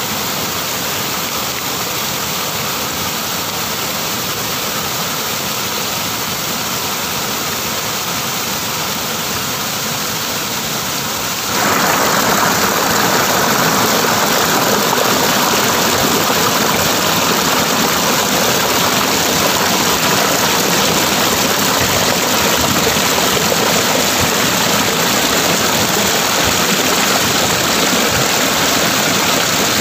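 Waterfall water pouring over rock ledges into a pool, a steady rushing noise that turns abruptly louder about a third of the way in.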